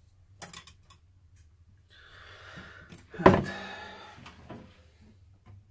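A metal baking pan scraped across the table and set down with one loud clank that rings briefly, after a light knock about half a second in.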